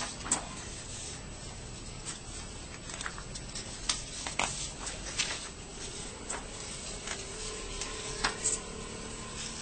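Sheets of paper being handled and shifted by hand: soft rustling with scattered sharp crackles and ticks over a steady background hiss.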